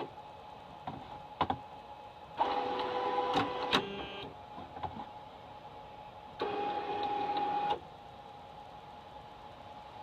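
Stepper motors of a large delta 3D printer whining as the printer makes two moves, starting about two and a half seconds in and again about six and a half seconds in, with a few sharp clicks.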